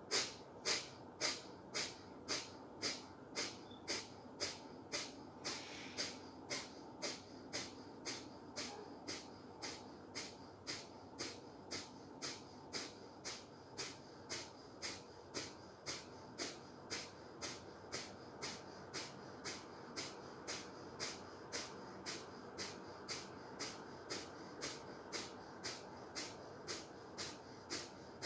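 Bhastrika pranayama (bellows breath): forceful exhalations through the nose, each driven by pulling the belly in, in a steady rhythm of about two a second, each a short rush of air.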